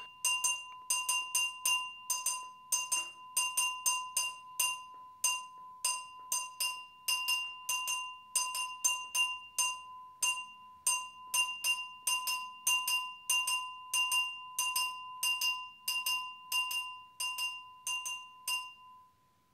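Campana de calipso, a hand-held metal bell, struck with a metal rod in a steady repeating offbeat rhythm of several strokes a second, each stroke ringing with the same clear high tone. The playing stops shortly before the end.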